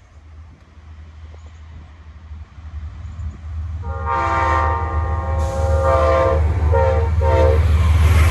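Amtrak P32AC-DM diesel locomotive approaching, growing louder, then sounding its air horn about four seconds in: one long blast followed by two short ones.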